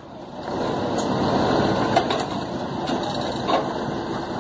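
A heavy truck's diesel engine idles with a steady rough rumble, and a few brief knocks sound over it.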